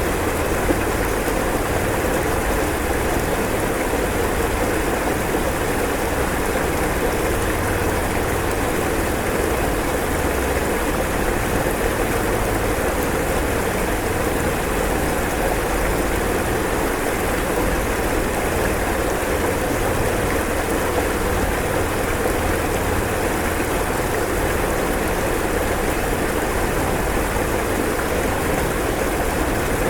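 Floodwater rushing: a steady, unbroken wash of water noise at an even level.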